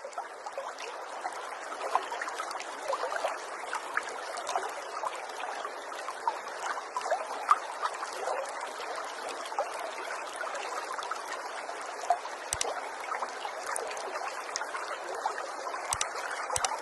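Steady trickling, babbling water.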